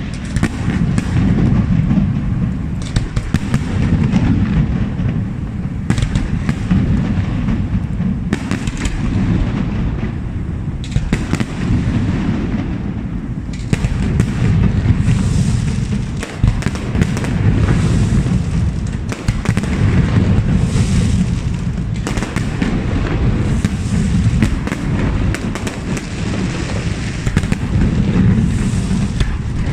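Aerial fireworks display: a continuous barrage of shell bursts, booms and crackling, with rapid sharp bangs over a dense low rumble.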